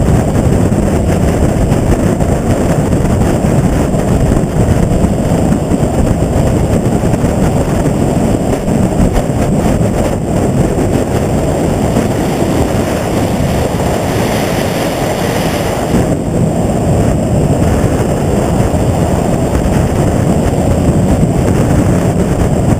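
Motorcycle riding at speed: steady wind rushing over the microphone mixed with engine and road noise, with a brief swell of hiss about fourteen seconds in.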